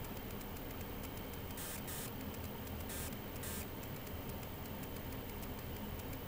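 Steady low electrical hum and hiss from running bench test equipment, with a few faint brief rustles.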